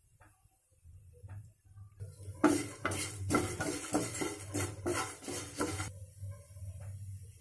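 Dry poha (flattened rice) and peanuts being stirred around a nonstick frying pan: a dense run of scraping and rattling that starts about two and a half seconds in and lasts about three and a half seconds. A low steady hum runs underneath.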